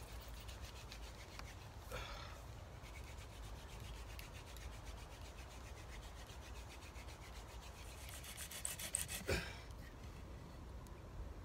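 Hand-drill friction fire: a long wooden spindle spun back and forth between the palms, its tip grinding in the socket of the wooden hearth board with a faint, dry rubbing. The rasping grows louder briefly about two seconds in, and again around eight to nine seconds in.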